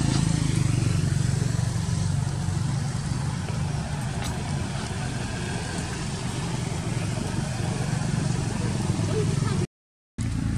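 A steady low engine hum, like a motor vehicle idling, that cuts out briefly near the end.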